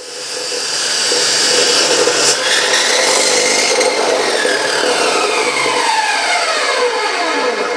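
Chop saw running at full speed, then its whine falls steadily in pitch from about four seconds in as the blade spins down.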